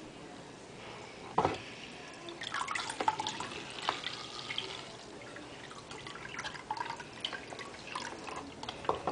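Water trickling and dripping into a small betta tank from its filter outflow, in irregular drips and small splashes, one sharper drip about a second and a half in.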